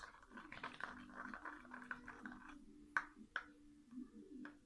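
Shower gel and salt being stirred in a small container: a scratchy, clicking stir for about two and a half seconds, then a few separate clicks, two sharper ones about three seconds in.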